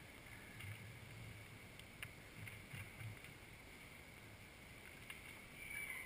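Faint, near-silent woodland ambience picked up by a camera lying still on the ground: a steady high-pitched whine under a light hiss, with a few soft clicks and low thuds.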